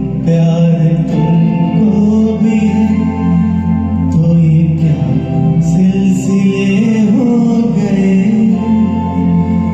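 Music from a Bollywood film song: held melodic notes over a steady low accompaniment.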